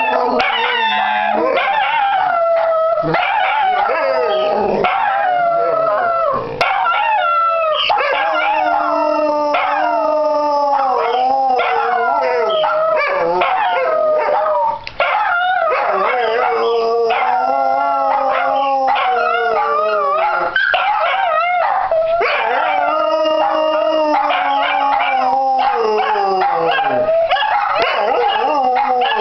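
Two dachshunds and a larger dog howling together in one long, unbroken chorus. Their overlapping howls slide up and down in pitch.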